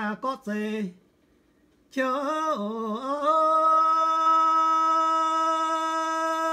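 A man singing a traditional song solo and unaccompanied: a short sung phrase, a break of about a second, then a new phrase that settles into one long, steady held note.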